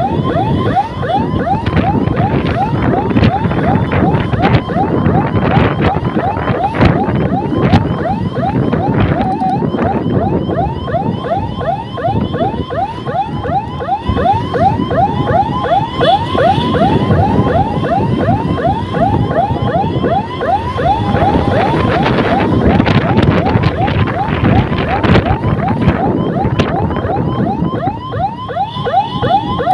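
Electronic escort siren on a scooter sounding a rapid yelp, about five quick pitch sweeps a second and loud throughout, over scooter engine, wind and road noise.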